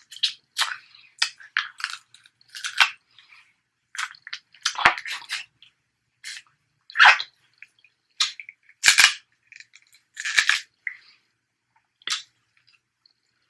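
Snow crab leg shells cracking and snapping close to the microphone: a string of irregular sharp cracks and crunches, the loudest about 5, 7, 9 and 10 seconds in.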